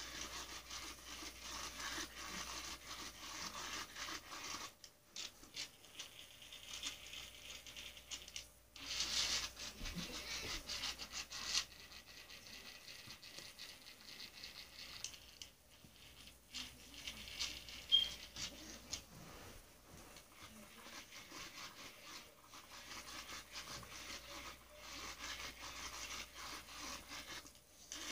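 Faint scratching and rubbing on carpet, with scattered light knocks, as a cat paws and moves around a small electronic ball toy close to the microphone; the sound is louder for a couple of seconds about a third of the way in.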